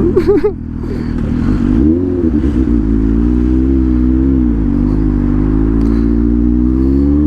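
Suzuki GSX-S 750 inline-four motorcycle engine pulling away and accelerating. Its pitch rises, drops briefly about four and a half seconds in as it shifts up, then climbs steadily again, with wind rush over the helmet microphone.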